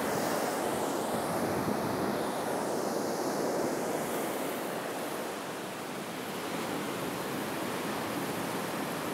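Ocean surf washing on the shore: a steady rushing noise that eases a little past the middle and then builds again.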